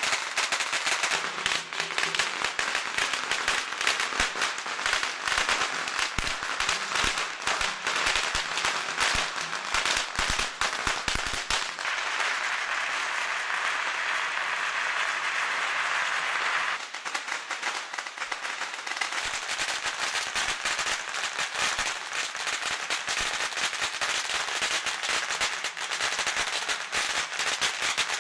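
Dense, rapid crackling and popping throughout, with a steadier hiss for a few seconds in the middle.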